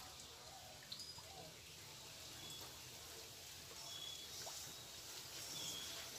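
Faint rustle of bare hands rubbing vegetable oil into flour in a steel bowl, the shortening (moyan) stage of nimki dough, with a few light taps about a second in. Short, high bird chirps come now and then in the background.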